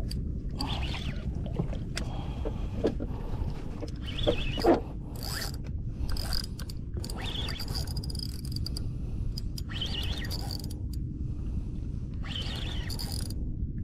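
Daido Spectre PS 4000 spinning reel being cranked while fighting a fish, its gears whirring and clicking in spells a few seconds apart, over a steady low rumble.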